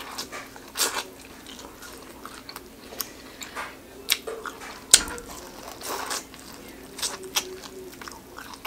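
Close-miked biting and chewing of corn on the cob: kernels crunching and snapping off the cob in irregular crisp clicks, the loudest about five seconds in.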